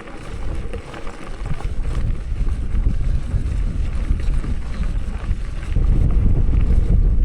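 Wind rumbling on the microphone of a moving bicycle, louder from about six seconds in.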